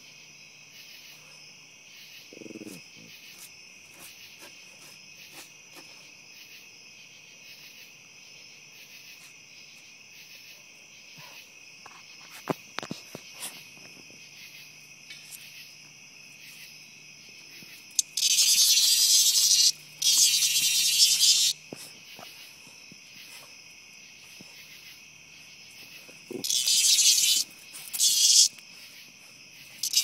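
A cicada giving loud, harsh buzzes in four bursts of a second or two each, two about eighteen seconds in and two more near the end, as it is attacked by dogs. Under it, a steady chorus of night insects.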